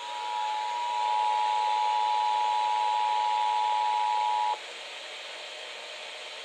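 Emergency Alert System attention signal: two steady high tones sounding together over an FM radio with a hiss of static beneath, announcing an emergency alert broadcast, here the monthly test. The tones cut off about four and a half seconds in, leaving only the radio's static hiss.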